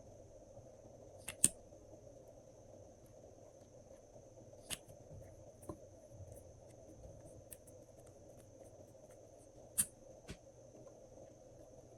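Glossy slime being worked by hand, with a few sharp pops and clicks of air pockets bursting, the loudest about a second and a half in and again near the end. A faint steady high whine runs underneath.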